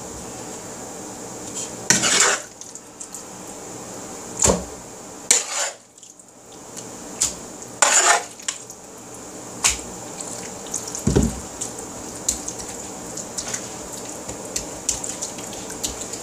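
Metal serving spoon scraping and knocking against a bowl as thick chicken pot pie filling is stirred and scooped into a pie crust. About half a dozen separate scrapes and clacks sound over a steady faint hum.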